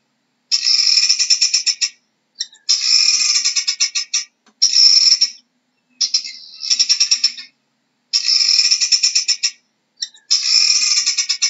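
Helmeted guinea fowl calling: about six bursts of rapid, harsh rattling notes, each a second or two long, with short pauses between.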